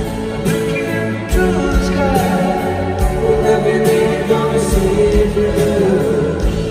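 Live band playing a slow ballad: strummed acoustic guitars over sustained chords, drum hits at a steady slow pace, with some singing.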